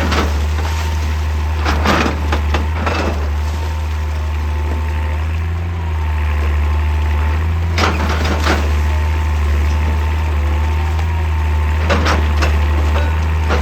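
Heavy excavator's diesel engine running steadily with a thin hydraulic whine, while rock cracks and crashes in irregular clusters of sharp impacts as it is broken.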